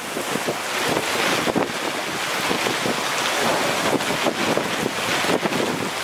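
Severe thunderstorm: violent wind and torrential rain, with gusts buffeting the microphone. It grows louder about a second in, then stays at a dense, gusting level.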